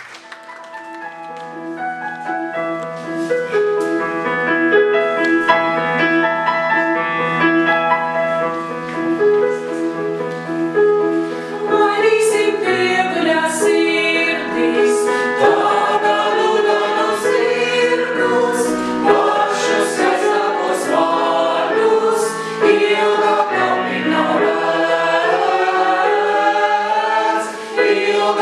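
Mixed choir of men's and women's voices singing in harmony. It opens softly with long held chords and swells over the first few seconds, and from about twelve seconds in the words come quicker, with audible 's' sounds.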